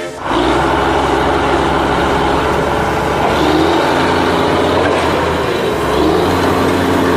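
Heavy vehicle engine running steadily, a dense rumble that cuts in abruptly just after the start.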